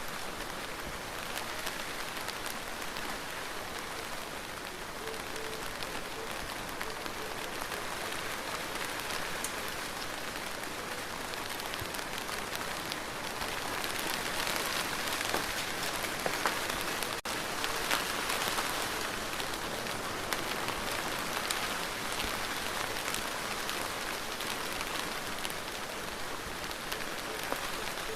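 Steady rain falling, with individual drops ticking close by. It grows a little heavier about halfway through, then eases back.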